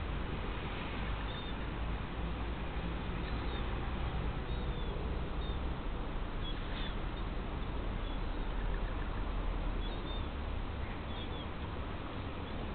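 House sparrows chirping now and then, a few short high chirps spread out, over a steady low rumble and hiss.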